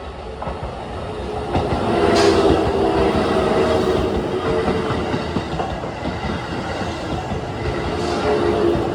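Electric commuter train running over a level crossing on the Keisei Oshiage Line, growing louder for about two seconds and then passing close by, its wheels clattering over the rail joints. Steady electric tones sound over the rumble, likely the crossing's warning bell and the train's motors.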